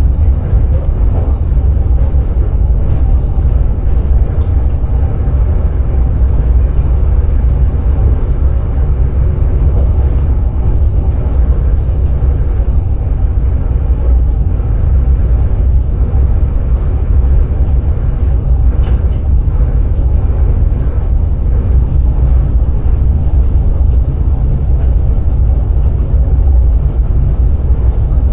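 Cab noise of a Sprinter electric train running on the line: a loud, steady low rumble with a few faint clicks.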